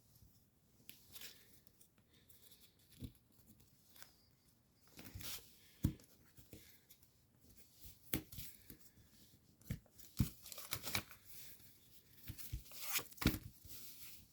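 Paper rustling and crinkling in short, irregular crackles as an origami model's layered flaps are folded over and creased by hand.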